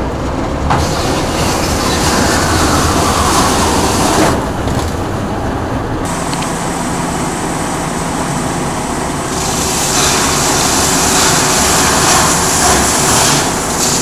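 Radiator separating machine (O-Jung RW 828) running, its rollers stripping aluminum fins off the copper tubes of air-conditioner radiators: a loud, steady mechanical clatter. It grows louder and brighter from about ten seconds in.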